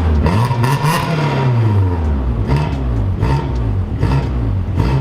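Car engine revved hard, its pitch climbing and dropping several times over a few seconds.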